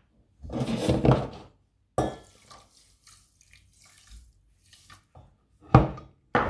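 Water poured from a small glass into a stainless steel saucepan of brown sugar. A sharp knock comes near the end.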